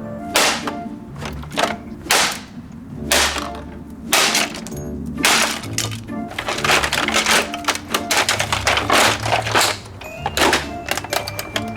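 Repeated heavy blows smashing a Hoover Rewind Plus upright vacuum cleaner, with thunks and cracking as its body breaks apart, a dense stretch of rapid cracking in the second half. Background music with a bass line runs underneath.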